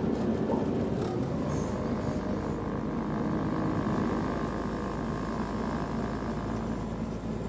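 Interior running noise of a Class 172 Turbostar diesel multiple unit on the move: a steady rumble of its underfloor diesel engine and the wheels on the rails. A faint steady whine joins about three seconds in.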